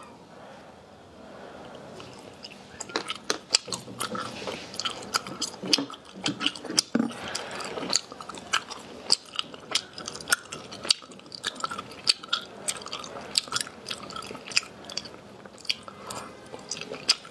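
Close-miked mouth sounds of a person chewing crunchy food: many sharp crunches and wet clicks in an irregular stream, starting about three seconds in after a quieter opening.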